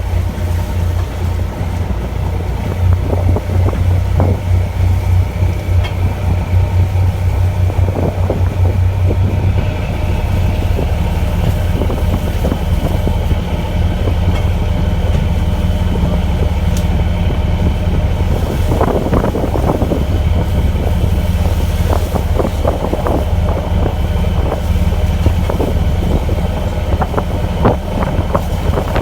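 A fishing boat's engine running steadily, an even low hum throughout. Scattered knocks and clatter come in the second half.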